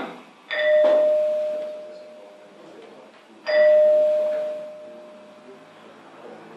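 A long, loaf-shaped ringing stone is struck twice and rings like a bell. Each clear note reverberates for a long time as it fades. Both strikes give the same note, which he takes for an E flat.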